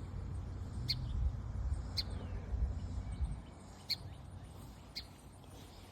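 Small bird giving short, high single chirps about once a second. A low rumble sits under the first half.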